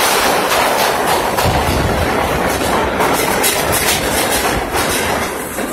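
Vintage R9-type subway cars pulling into an underground station, wheels clattering over the rail joints in a quick run of clacks through the middle. The noise eases off near the end as the train slows.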